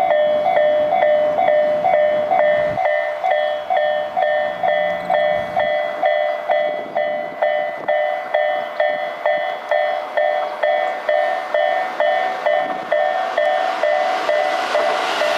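Japanese railway level crossing's electronic warning bells ringing, a repeating two-tone ding about twice a second. Two bell units of different sound ('Isesaki' type and 'pon-pon' type) ring out of step with each other. Near the end a train's running noise swells in as it approaches.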